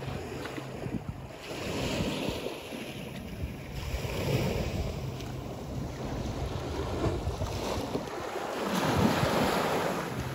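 Small high-tide waves washing and lapping against a concrete sea wall, the wash swelling and fading every couple of seconds and loudest near the end. Wind blows on the microphone throughout.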